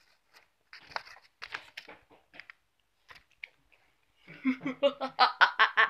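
Crackling, rustling handling noise as paper and toys are moved close to the microphone. It builds near the end into a quick run of crunchy clicks, about eight a second.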